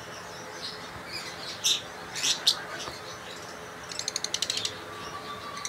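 Lovebirds chirping: a few sharp, high chirps, then a quick chattering run of about ten short notes lasting under a second.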